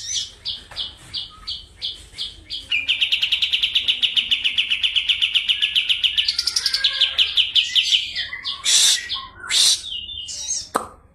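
Kapas tembak songbird singing: a string of evenly repeated high notes about four a second, then a long, very fast rolling trill that rises in pitch partway through, ending in three loud separate calls.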